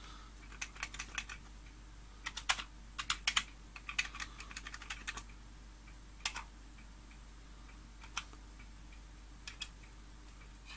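Keys of a Commodore computer keyboard being typed: short runs of key clicks in the first five seconds, then single keystrokes spaced a second or two apart.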